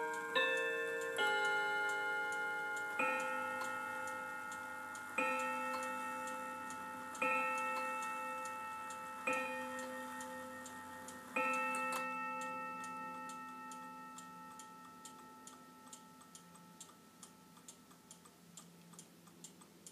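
Seth Thomas chiming mantel clock with a 124 movement finishing its chime tune, then striking the hour five times, about two seconds apart, each low tone ringing on and fading. As the last strike dies away, the clock's steady tick comes through.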